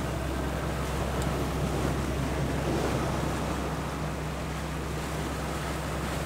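Open-sea waves washing and breaking, with wind blowing over the water and on the microphone, as a steady hiss. A low, steady hum runs underneath.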